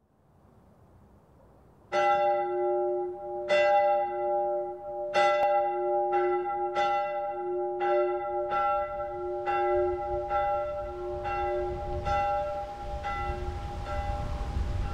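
A single church bell tolling, about a dozen strokes roughly one a second starting about two seconds in, each stroke ringing on into the next. A low rumble rises under it in the last few seconds.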